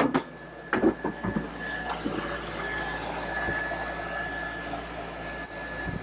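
Two knocks in the first second as the camper box door is opened and someone steps in, then the steady rush of a 12/24-volt DC mini-split air conditioner's indoor unit blowing air, with a thin steady whine over it, running just after its refrigerant charge.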